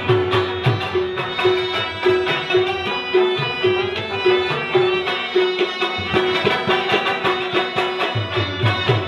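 Live Pashto folk music: tabla drumming in a steady rhythm with deep bass strokes, under sustained harmonium notes and a plucked rabab.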